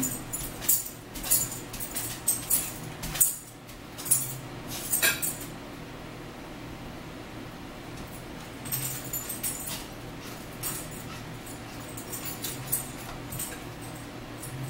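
Eating sounds at a table: forks clicking and scraping on plates along with close-up chewing and mouth noises, in irregular bursts with a short lull in the middle.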